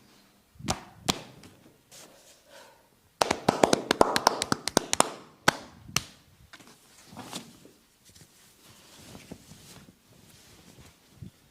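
Sharp pops and slaps from hands working on the head during a massage: two single cracks, then about three seconds in a rapid run of roughly fifteen in under two seconds, then a few more scattered pops.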